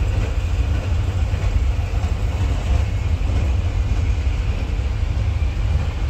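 Steady low rumble and rushing noise of a moving passenger train, heard from inside a coach corridor.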